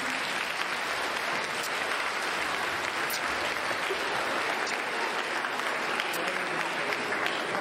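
Audience applause: many people clapping together in a steady, dense patter.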